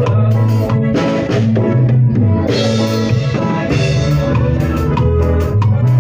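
Live cumbia band playing, with a steady bass line under a drum kit; cymbal crashes about a second in and again midway.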